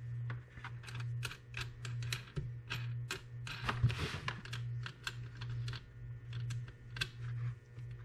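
Irregular small metallic clicks and taps as a wire's ring connector and a wing-nut marine terminal are handled and fitted onto a battery's positive post, with a brief rustle about four seconds in. A steady low hum runs underneath.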